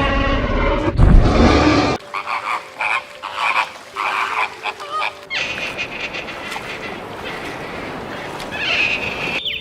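Animal calls from several recordings edited together: a loud low call that cuts off about two seconds in, then a run of short, rapid calls, then a steadier hiss with a higher call near the end.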